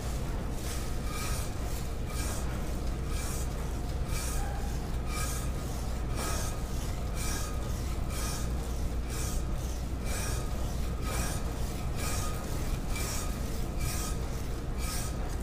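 Perforated hand rasp scraping over a plaster positive model in repeated back-and-forth strokes, roughly one to two a second, shaving plaster off the cast.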